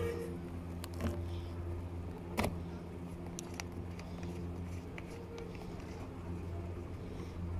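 Steady low machine hum with a few sharp clicks, from a mountain-coaster-style ride's lift and track mechanism.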